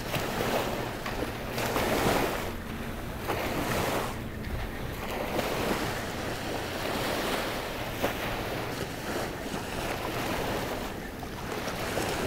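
Small waves washing up on a sandy beach, swelling and easing every couple of seconds, with wind buffeting the microphone and a low steady drone underneath.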